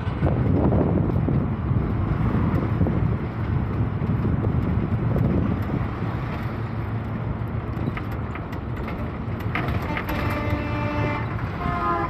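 Steady engine and road rumble with wind, heard from the window of a moving bus. Near the end a vehicle horn sounds for about a second and a half.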